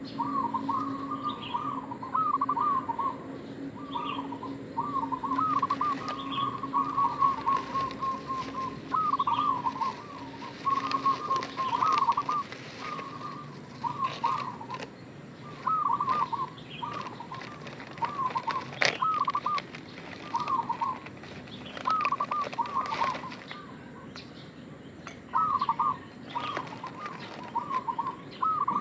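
Zebra dove (perkutut) calling over and over in phrases of short, bouncing coos, with brief pauses between phrases.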